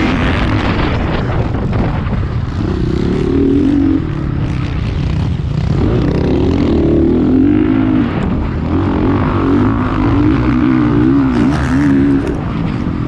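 Motocross bike engine revving hard at racing speed, heard from the rider's own bike. Its pitch rises and falls with throttle and gear changes, with a brief drop about four seconds in and a fast run of rises and falls near the end.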